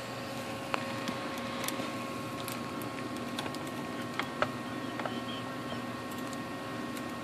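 Steady hum of running computer equipment, with several steady tones over a low noise. A few sharp clicks cut through it, one about three-quarters of a second in and two in quick succession a little past four seconds.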